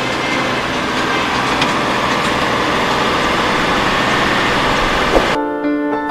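A heavy engine running steadily, with a dense mechanical noise. It cuts off abruptly near the end, and keyboard music with clear piano-like notes comes in.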